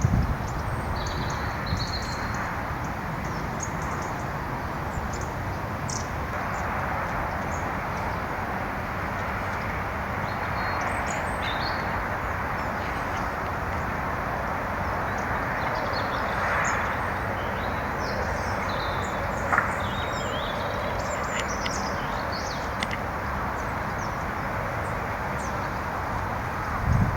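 Small birds chirping briefly and often at a feeding station, over a steady outdoor background noise.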